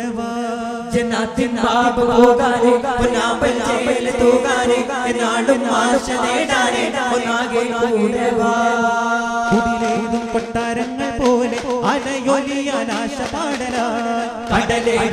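Daff muttu: male voices chanting a song in chorus over daff frame drums struck by hand in a steady rhythm.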